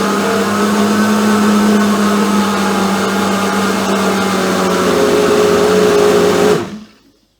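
Philips countertop blender running at a steady speed, blending a smoothie, then switching off and spinning down about seven seconds in.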